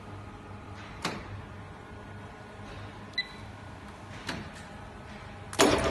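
Paper cup machine with a steady low hum, a couple of short hisses and a brief beep. Just before the end it starts running with loud, dense mechanical clattering.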